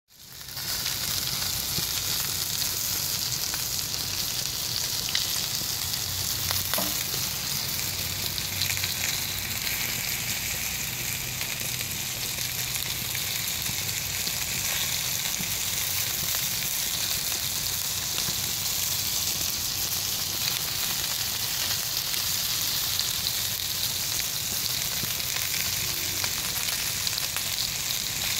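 Baby lamb chops sizzling on a ridged grill pan: a steady hiss of meat and fat frying.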